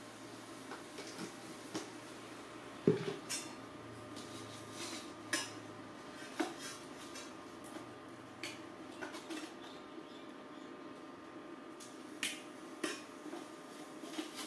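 Metal cooking utensils (tongs, a ladle and a spoon) clinking and scraping against a stainless steel pot in scattered sharp knocks, the loudest about three seconds in.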